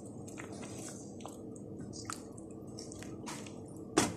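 Creamy chicken and mushroom sauce simmering in a pan, bubbling steadily with small pops and squishy sounds. One sharp, loud knock near the end.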